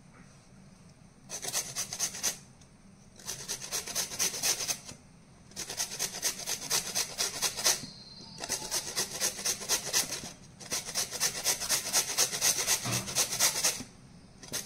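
Raw carrots being grated on a stainless-steel box grater. Quick, repeated rasping strokes come in five runs of one to three seconds each, with short pauses between them.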